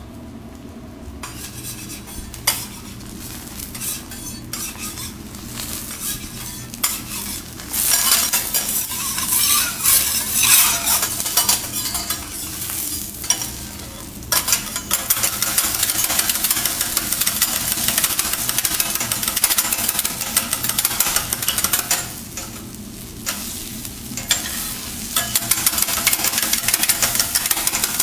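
Eggs sizzling on a steel teppanyaki griddle while a metal spatula scrapes and chops them against the plate in quick clicking strokes. The sizzle and scraping get louder about eight seconds in.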